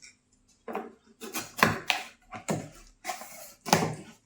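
Fan packaging being handled as the contents are taken out of the box: a run of irregular rustles and knocks, starting about two thirds of a second in.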